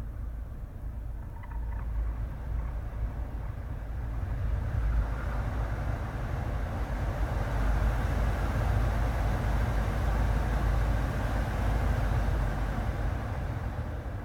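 Nissan Qashqai cabin heater blower fan running, its rush of air building up from about four seconds in and easing off near the end, over a steady low rumble. A couple of faint squeaks come from the fan in the first two seconds.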